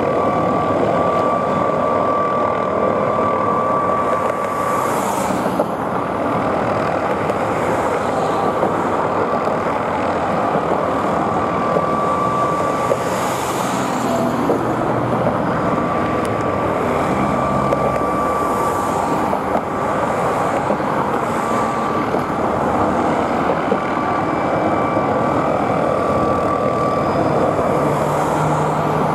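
McDonnell Douglas MD 520N NOTAR helicopter hovering close by: the steady, dense noise of its turboshaft engine and main rotor, with a thin high whine that fades in and out.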